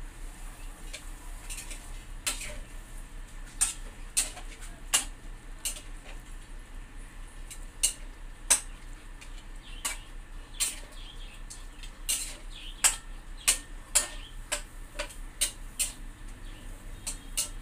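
Puppy eating dry kibble from a stainless steel bowl: irregular crunches and sharp clinks of kibble against the metal, a few a second.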